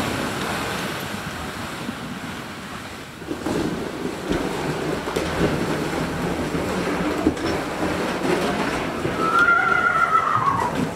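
A loaded sled dragged over snow by a draft cow, the sled scraping and the snow crunching unevenly. Near the end comes a brief high squeal falling in pitch.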